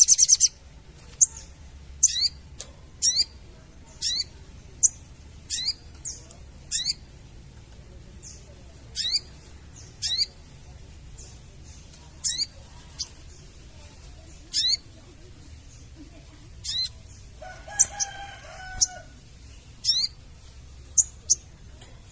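Sogon bird calling: a burst of rapid chattering right at the start, then short, sharp, high rising chirps repeated roughly once a second. A lower warbling call comes in briefly about eighteen seconds in.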